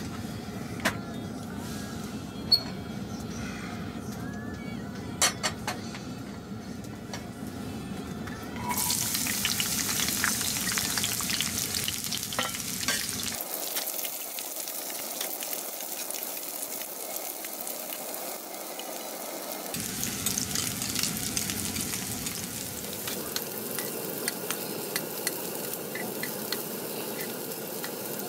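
Sliced garlic frying in oil in a frying pan, stirred with a spoon. A few sharp clicks come in the first seconds, then a sizzle sets in abruptly about nine seconds in and carries on, with small scrapes and clicks of the spoon moving the slices.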